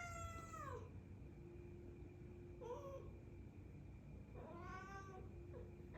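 A house cat meowing three times: a drawn-out meow near the start that drops in pitch at its end, a short meow about three seconds in, and another about four and a half seconds in.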